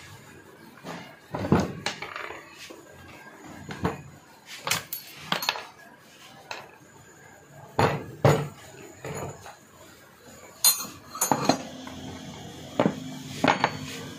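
Metal starter-motor parts (armature, solenoid and housing) clanking and clinking as they are handled and set down, a dozen or so irregular knocks and taps.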